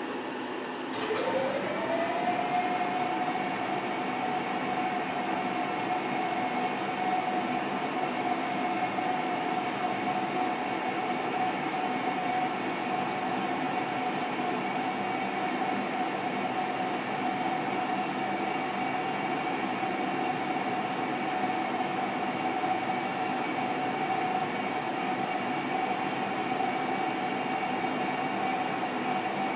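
KERR oil furnace's burner motor switching on with a click about a second in, rising in pitch as it spins up, then running with a steady whine and rush of air as the burner starts its firing cycle.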